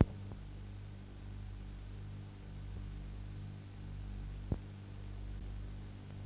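Steady low electrical hum with a faint hiss, the background noise of an old tape-recorded film soundtrack, with a short click at the start and another past the middle.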